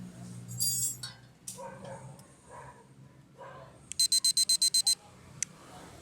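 Rapid electronic beeping: a quick run of about nine short, high-pitched beeps lasting about a second, some four seconds in.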